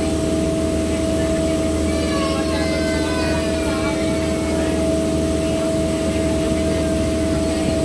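Water taxi's engine running steadily under way: a constant hum with a steady tone in it and no change in level. Faint voices come through briefly about two seconds in.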